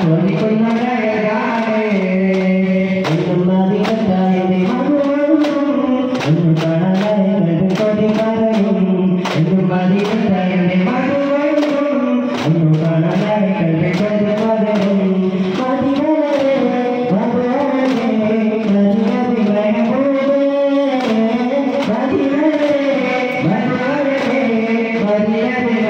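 A chanted song sung in unison by male voices, with hand-held frame drums (daf) struck in rhythm as sharp slaps over the singing.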